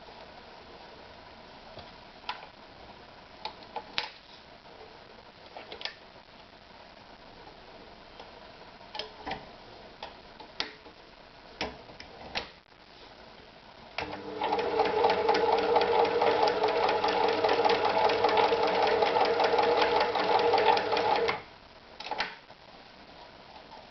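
Privileg Super Automatik TopStar 796 sewing machine: scattered clicks and knocks of handling, then the machine sews steadily for about seven seconds from a little past halfway and stops abruptly, followed by a few more clicks.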